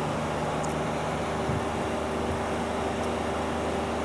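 A vehicle engine running at a steady speed with even road and wind noise, heard from on board while driving.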